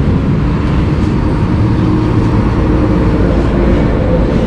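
Steady road traffic noise from cars, trucks and motorbikes passing on a busy city road, with a heavy low rumble.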